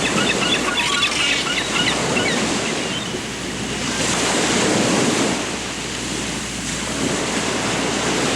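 Surf washing in steadily, with small birds chirping rapidly over it for the first two seconds or so.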